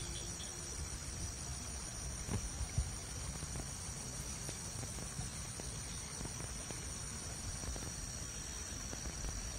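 Insects chirring steadily in several high, unbroken tones, over a low steady rumble.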